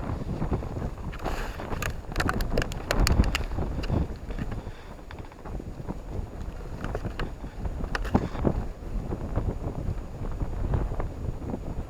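Strong wind buffeting the microphone in gusts, with a quick run of small clicks and knocks about two seconds in and another click near eight seconds.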